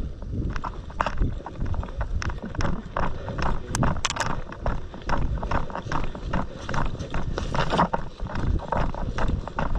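Footsteps of a person walking over rough ground, a quick, uneven run of crunching steps over a low rumble of handling noise on a body-worn camera. A couple of sharper clicks stand out about four seconds in.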